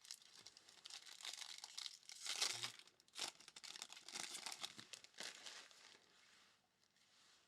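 A foil wrapper of a trading card pack crinkling as it is torn open and handled, loudest about two and a half seconds in and dying away near the end.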